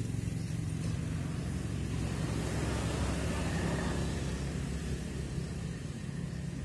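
Low, steady engine rumble of a motor vehicle, swelling a little around the middle and easing off toward the end.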